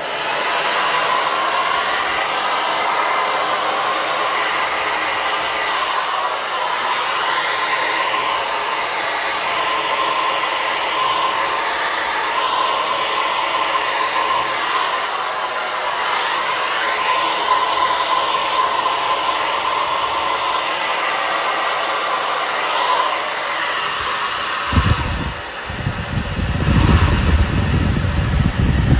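Hair dryer switched on and blowing steadily: a loud rushing hiss with a faint steady whine. Near the end a strong low rumble joins it.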